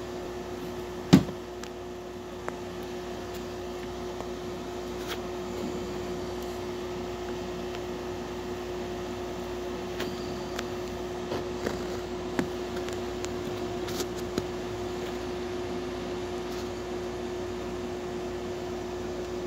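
A Crosman Diamondback nitro-piston .177 air rifle fires once about a second in: a single sharp, loud crack with a short ring. A steady electrical hum runs underneath, with a few faint clicks later on.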